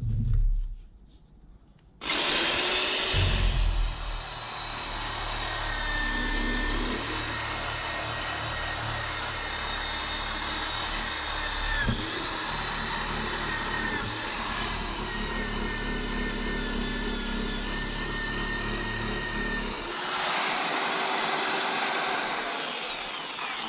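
Electric polishing tool's motor starting up with a high whine, running steadily with brief dips in pitch as it is pressed onto the metal, speeding back up when the load comes off, then switched off and winding down with a falling whine near the end.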